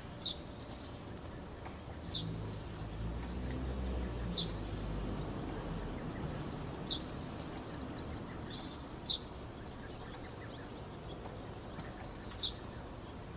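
A bird's repeated single chirps, each a quick downward-sliding note, coming every two to three seconds over a steady hiss. A low rumble swells between about two and six seconds in.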